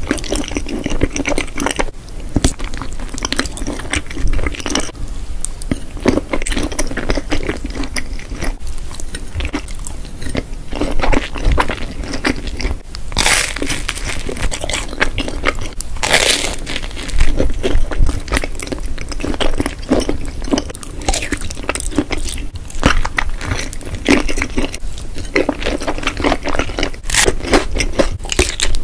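Close-miked eating sounds: crunchy bites and chewing of sausages dipped in melted cheese and of cheese-covered toast, with a few louder crunches about halfway through.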